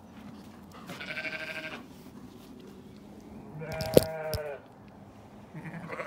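Zwartbles sheep bleating three times, the first call wavering. A sharp knock, the loudest sound, comes about four seconds in, during the second bleat.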